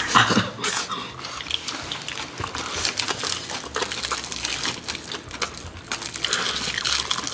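Close-up eating sounds of soy-marinated raw crab being eaten: wet chewing and sucking with many small sharp clicks, and a wetter, hissing slurp near the end.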